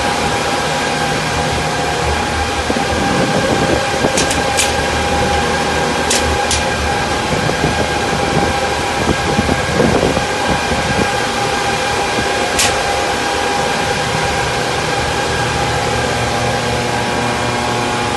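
A room full of cryptocurrency mining machines running together: their cooling fans make a loud, steady whir with a constant whine. A few short high clicks come through about four, six and twelve seconds in.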